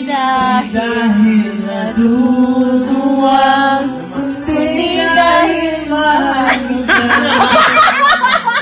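A man singing a slow song into a corded handheld microphone, holding long notes; near the end the sound becomes choppier.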